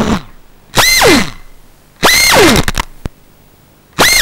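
Brushless motors of a small FPV whoop drone in crash-flip (turtle) mode, trying to flip the upside-down drone back over: three short bursts, each a high whine that starts abruptly and falls away in pitch as the props spin down.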